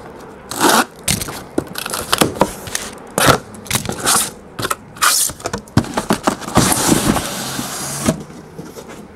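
Cardboard card cases being handled and set down on a table: a string of knocks and bumps, with a longer scraping stretch about two-thirds of the way through.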